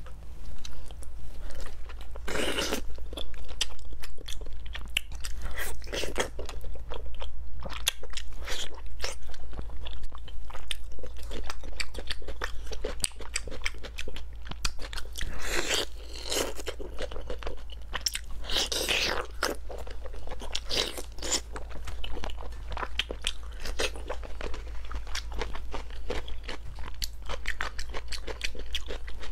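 Close-miked eating: biting and chewing braised pork belly, a dense run of small sharp clicks and crunches with a few longer bites, over a steady low hum.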